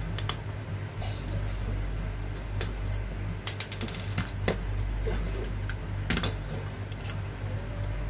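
Small, sharp clicks and clatter of a screwdriver working screws on a microwave inverter board and the board being handled and turned over, densest in the middle, over a steady low hum.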